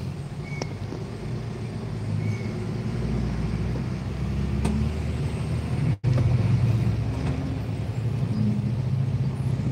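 Steady low rumble of engine and road noise heard from inside a car's cabin in city traffic. It cuts out for an instant about six seconds in.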